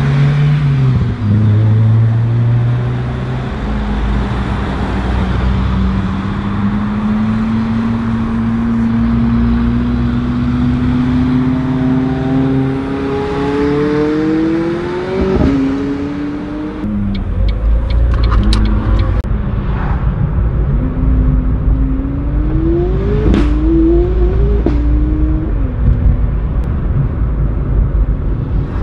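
Car engine accelerating, its pitch climbing steadily for about fifteen seconds before dropping away. After that comes a deeper rumble with several sharp cracks and a few short revs rising in pitch.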